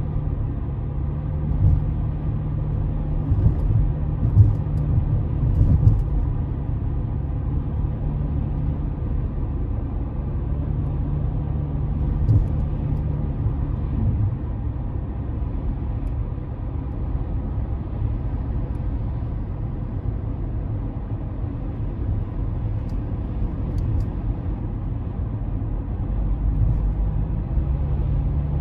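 Car driving, heard from inside the cabin: a steady low rumble of engine and tyre noise, with a few small bumps and knocks.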